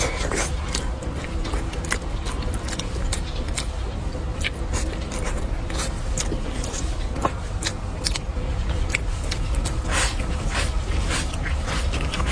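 Close-up eating sounds: chewing and many short, sharp clicks, over a steady low rumble in the background.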